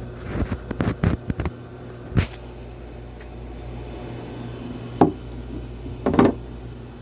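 Animatronic parts and packaging being handled while unboxing: quick clicks and rustles at first, a sharp knock about two seconds in, then two louder short bumps near the end, over a steady low hum.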